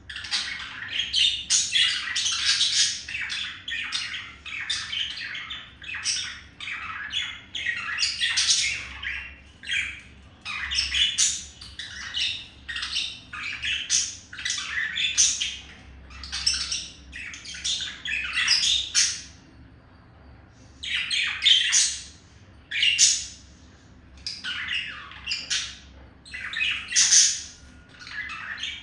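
Male budgerigar's courtship warble: a continuous chatter of rapid squawks, chirps and clicks in short phrases with brief pauses.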